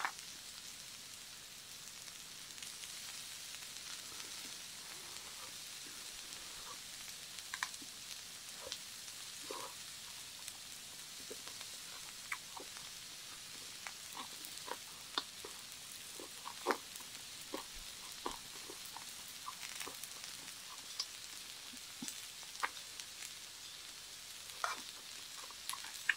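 Beef intestines (gopchang) sizzling on a tabletop grill: a steady high hiss with scattered pops and clicks throughout.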